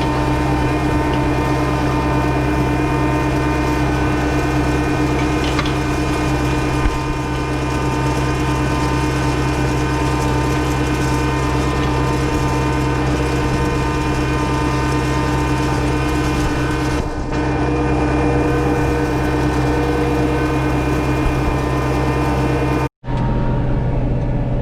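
John Deere 6110 tractor's diesel engine running steadily under way, with a mechanical gear and rattle noise from the drivetrain and the hitched hay rake. It cuts out briefly near the end.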